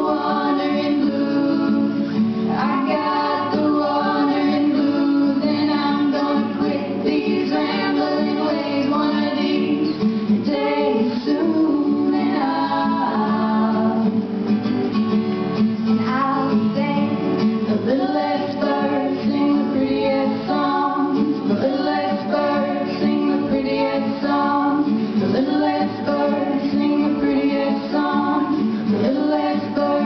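Girls' voices singing a song together, accompanied by an acoustic guitar, played live.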